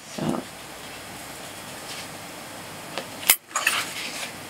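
Faint handling of card and ribbon as the ribbon is wrapped around a small paper box, with one sharp click about three seconds in.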